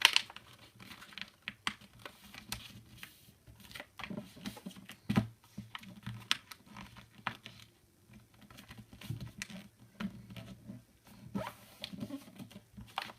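A sheet of paper being handled, turned over and folded into a paper airplane wing, with irregular crinkles, rustles and small taps as the folds are pressed down.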